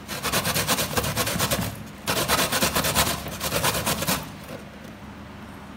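Dry coconut flesh being grated on a stainless-steel box grater: quick, rapid rasping strokes in two runs, with a short break just before two seconds in, and the grating stops a little after four seconds.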